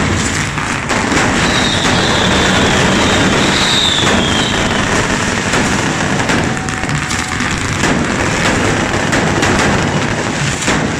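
Many carretilles, the hand-held spark-spraying fireworks of a Catalan devils' dance, firing at once: a loud, continuous hissing rush with crackle. A thin whistle slides slightly downward a couple of seconds in.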